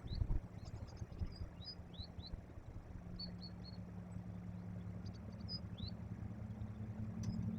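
Small birds calling with short high chirps, some sweeping downward, over a low steady engine hum that grows louder near the end. A few low knocks come right at the start.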